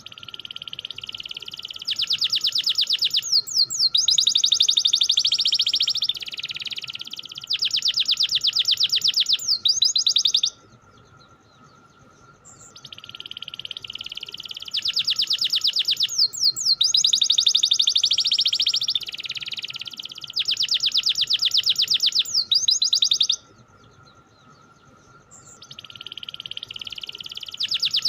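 Domestic canary singing long phrases of fast rolling trills, each phrase about ten seconds, broken by two short pauses.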